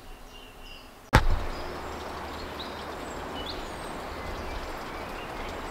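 Outdoor ambience: scattered short bird chirps over a steady low background rumble, which starts abruptly with a sharp click about a second in.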